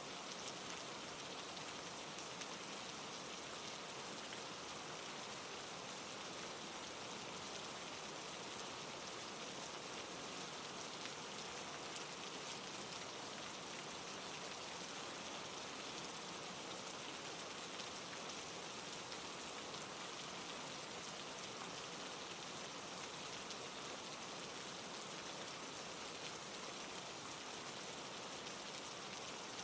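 Steady rain, an even hiss of falling rain with faint scattered drop patter.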